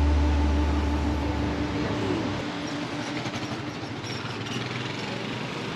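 Background music fading out over the first two seconds, leaving steady city street noise with traffic.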